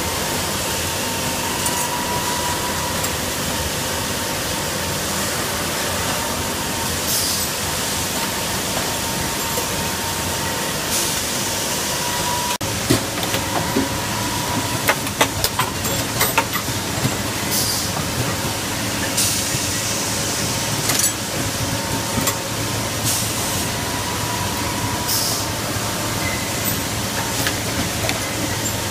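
Automated pneumatic assembly machine running: a steady mechanical noise with short hisses of compressed air every couple of seconds, and a run of sharp clicks and clacks around the middle.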